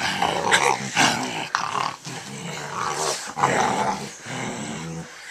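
Pit bull growling almost continuously while roughhousing with a man's hands, with a few short breaks.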